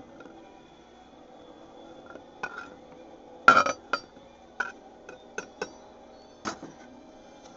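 Sliced chouriço sausage being scraped off a wooden cutting board into a metal cooking pot: a run of sharp knocks and clinks of knife, board and pot, the loudest about three and a half seconds in.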